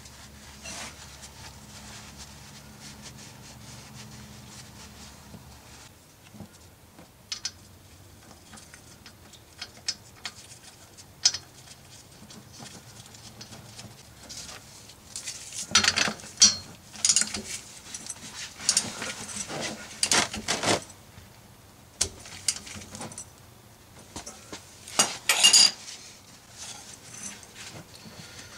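Small metallic clinks and scrapes from hand work at a drain plug under a car, with a shop towel rubbing. Scattered single clicks, then a loud stretch of rustling and clinking from about halfway through lasting several seconds, and another short burst near the end; a faint low hum stops about six seconds in.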